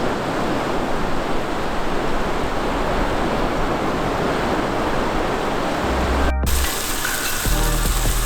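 Steady rushing sound of ocean surf. About six seconds in, it cuts off abruptly and food sizzles and crackles as it fries in a pan, with a low, deep note underneath.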